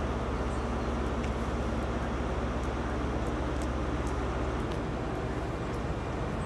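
Diesel engine of a Class 43 HST power car idling at a standstill: a steady low hum whose deepest part drops away about two-thirds of the way through.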